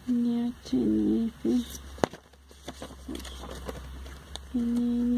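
A woman humming wordlessly: a short held note at the start, a wavering hummed phrase about a second in, and a longer flat note near the end. A single sharp click about two seconds in, with light handling noise after it.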